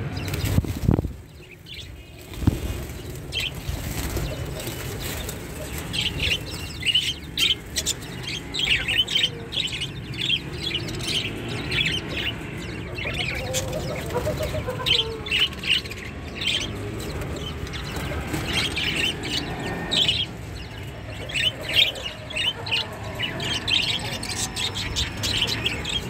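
Budgerigars chirping and chattering in an aviary: many short, high calls overlapping throughout, over a low rumble of the phone being handled, with a couple of knocks near the start.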